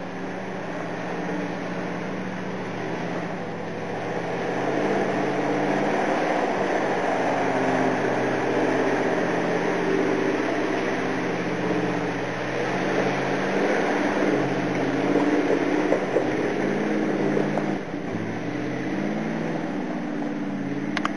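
ZIL-131 6x6 army truck's V8 petrol engine labouring through deep mud, its pitch shifting up and down as the throttle changes. It grows louder as the truck comes close over the first few seconds and drops back near the end as it moves away.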